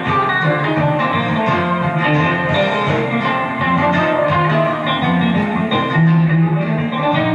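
Live band music in an instrumental passage, with an electric guitar playing lead lines over the band.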